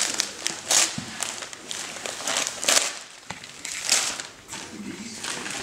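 Gift wrapping paper being torn and crinkled as a present is unwrapped, in several quick rips.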